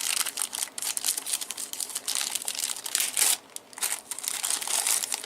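Plastic packaging crinkling and crackling as it is handled and pulled away, with many small sharp crackles throughout.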